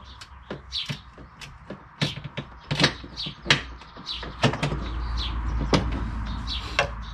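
Hand ratchet clicking in short, irregular strokes, with metal knocks against the car's front frame, as a hard-to-reach mounting-plate bolt is worked loose. A low rumble comes in about halfway through.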